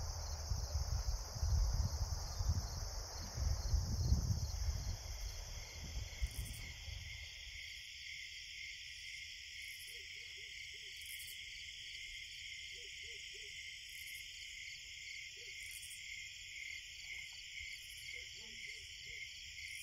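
Steady, pulsing, high-pitched insect chorus, with a low rumble on the microphone during the first several seconds that then dies away. Faint short low calls come in now and then later on.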